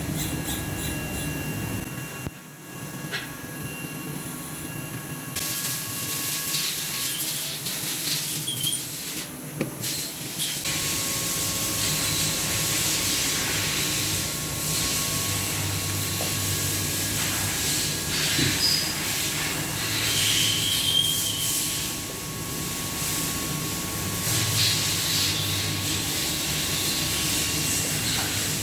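Machine-shop noise: a steady hiss that gets louder about five seconds in, over a low machine hum and faint steady tones, with a few short squeaks and clicks.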